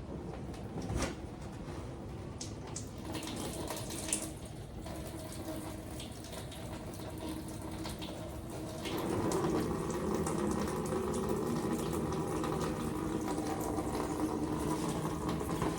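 Coolant draining out of a 1999 Corvette's cooling system in a steady pouring stream, with a couple of clicks in the first few seconds. The stream gets louder about nine seconds in.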